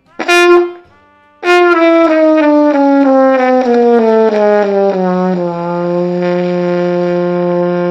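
Trumpet playing a short middle G, then, after a breath, a chromatic scale falling in eighth notes from the middle G down to the low G, which is held as a long steady note.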